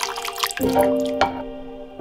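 Thick braising sauce poured over short ribs in a glass baking dish, with a brief wet splashing in the first half second, over background music throughout.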